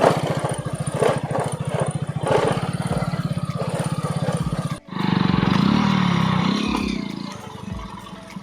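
Hero Passion Pro motorcycle's single-cylinder four-stroke engine running, with its parts rattling and shaking on a very rough road. About five seconds in, the sound cuts abruptly to a louder rushing noise that fades away.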